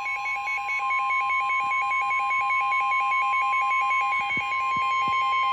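Weather radio alert: the steady 1050 Hz warning alarm tone sounding a severe thunderstorm warning, under a rapid warbling beep pattern of higher and lower pitches.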